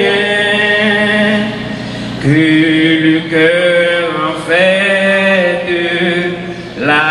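Voices singing a slow French hymn in long held notes that step up and down in pitch.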